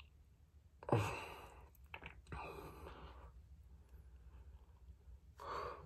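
A man sighing and breathing out heavily through his mouth, four breaths in all, the first, about a second in, the loudest, with his mouth packed full of snus.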